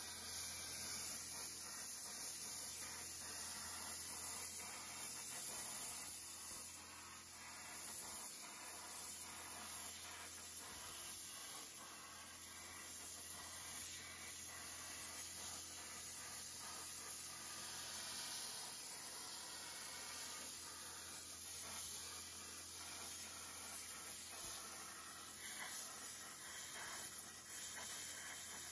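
Hypertherm plasma torch on a CNC table cutting 16-gauge stainless sheet: a steady high-pitched hiss with a low hum under it.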